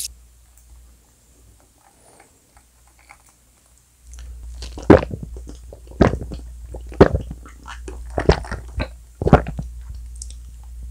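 Close-miked gulping of a fizzy drink from a glass mug: about five loud swallows roughly a second apart, starting about five seconds in.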